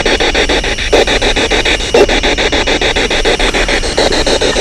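Spirit box sweeping through radio stations: a loud stream of choppy static and radio fragments, chopped about ten times a second.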